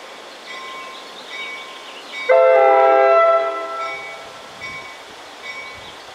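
NJ Transit train horn sounding one loud blast of about a second, a chord of several notes, starting about two seconds in. Under it the crossing's mechanical warning bells ring over and over.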